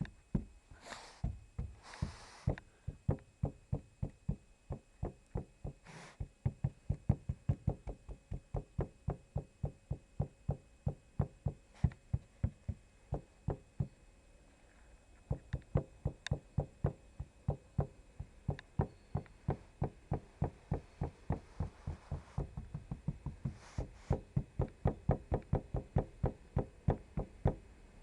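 Rapid, evenly spaced knocking from the Lada Granta's rear interior trim, its rear parcel shelf and rear pillar trims, at about four knocks a second with a short break about halfway. These are the cabin trim knocks being demonstrated.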